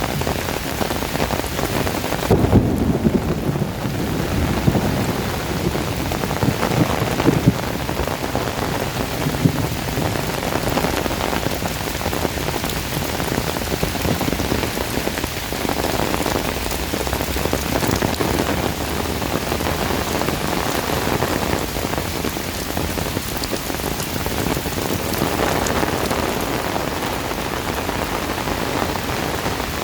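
Heavy rain falling steadily. A deeper rumble rises a few seconds in and fades after several seconds.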